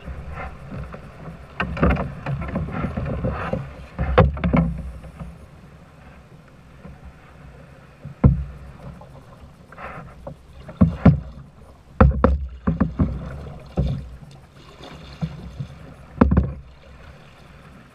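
Irregular knocks and thumps in a small fishing boat, about seven sharp ones, over a low rumble of wind on the microphone.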